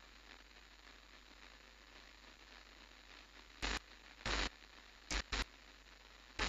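Faint hiss, then four short bursts of static-like noise, the last two close together, before loud continuous static sets in near the end: an electronic glitch sound effect on an outro graphic.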